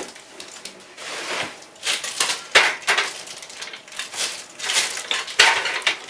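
Plastic wrapping crinkling and rustling as the wrapped metal legs of a telescope mount's tripod are handled and spread apart, with a few sharp knocks of the legs, the clearest about two and a half seconds in and near the end.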